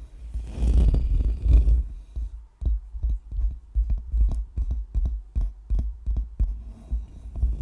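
Microphone being scratched and brushed right on its head, close and loud with deep thuds. It starts with about two seconds of dense continuous scratching, then breaks into separate short strokes, about three a second.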